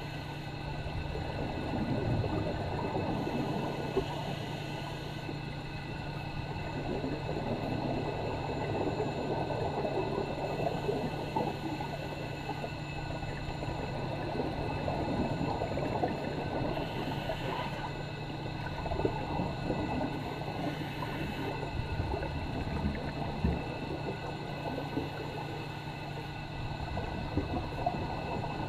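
Underwater recording of a scuba diver's exhaled bubbles from a full face mask regulator, gurgling and swelling every few seconds with each breath, over a steady low hum.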